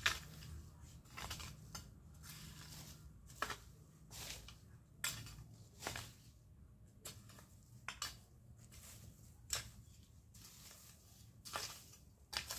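A long-handled hoe chopping and scraping into dry soil and weeds, with irregular sharp strikes about every one to two seconds.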